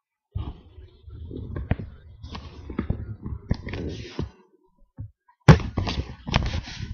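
Handling noise from a camera being moved about: rubbing and rustling with a string of knocks, pausing briefly, then resuming with the loudest knock about five and a half seconds in.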